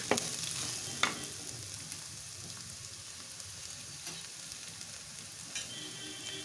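Chopped onion, green chilli and cashews sizzling steadily in hot ghee in a clay pot. A wooden spatula knocks against the pot twice in the first second or so, then the sizzle carries on alone, easing slightly.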